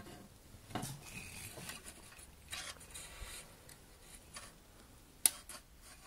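Handling noise: light rubbing and soft knocks, with one sharp click just after five seconds in.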